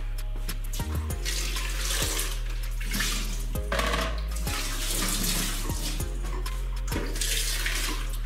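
Water running from a tap, swelling and easing off in several irregular spells, over background music with a steady bass line.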